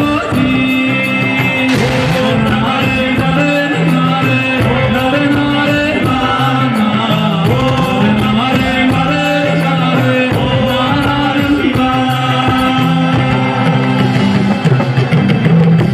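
Live band music with a man singing a Hindi devotional song over a steady drumbeat.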